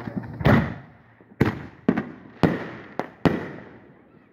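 Consumer fireworks shooting into the air: six sharp bangs at uneven intervals over about three seconds, each with a short fading echo, the first the loudest.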